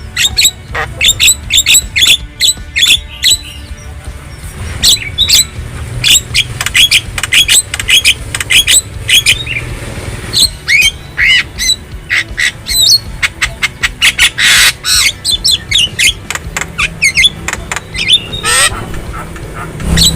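Javan myna (jalak kebo) singing and calling: quick runs of short, sharp chirps and whistled notes, some gliding, repeated throughout, over a steady low hum.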